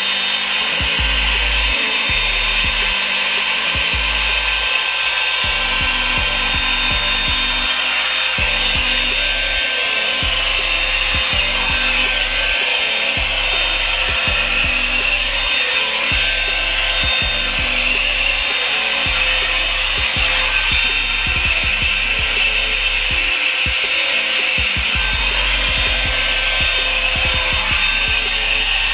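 Revlon blow-dryer brush running steadily with a constant airy rushing noise as it dries hair, with background music underneath.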